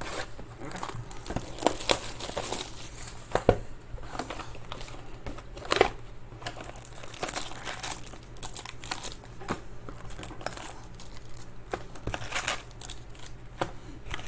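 Baseball card pack wrappers crinkling and tearing as packs are handled and ripped open, in irregular rustles and sharp crackles.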